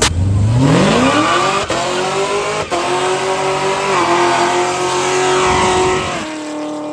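Chevrolet Camaro ZL1's supercharged V8 doing a burnout: the revs climb quickly over about two seconds and are held high with the rear tyres spinning, then ease off and fade near the end.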